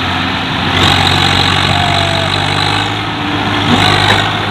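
Tractor diesel engines running steadily under load as a Swaraj 744 FE pulls a second tractor, rotavator attached, through deep mud on a tow chain. The engine note swells a little about a second in and again near the end.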